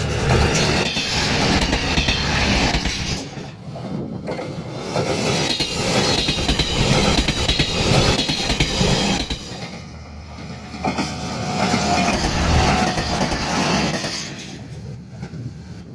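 A train running on the rails, its wheels clattering, the sound swelling and easing several times.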